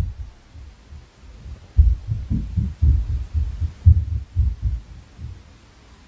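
Dull, low thuds of footsteps from the flat upstairs, carried through the ceiling: one thud at the start, then a run of irregular heavy stomping, about two to three thuds a second, in the middle.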